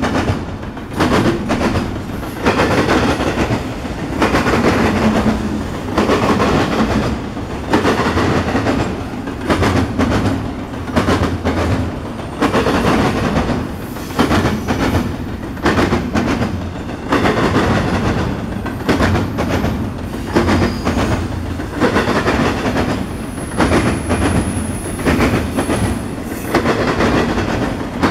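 Double-stack intermodal freight train passing close by: a steady rumble of container well cars with wheels clacking over the rail joints, swelling in regular beats every second or two as each set of trucks goes by.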